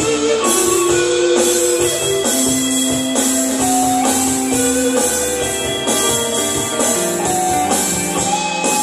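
Live band playing with electric guitar, keyboard and drum kit. Cymbal strokes keep a steady beat of about two a second under held melody notes.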